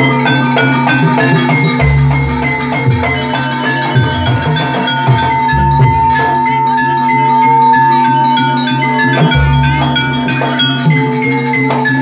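Javanese gamelan music for a jaranan dance, played loud through loudspeakers. Metallophones ring quick, short notes over kendang drum strokes, with deep low notes about every four seconds. A long held high note runs through the middle.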